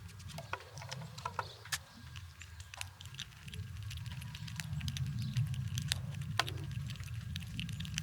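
Squirrels gnawing and cracking nuts: a run of sharp, irregular crunches and clicks over a steady low rumble.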